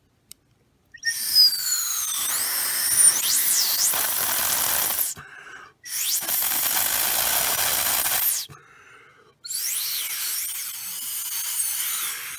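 Three long, hard blows through a drinking straw across the top of a short straw standing in a cup of juice: a loud rush of air with high whistling tones that slide up and down. The airflow over the short straw lowers the pressure and draws up the liquid, spraying it like an airbrush.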